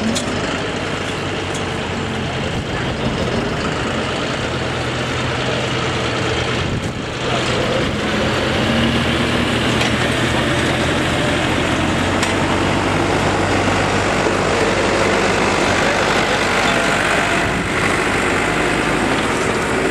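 Farm tractor engine running steadily close by, getting louder about seven seconds in.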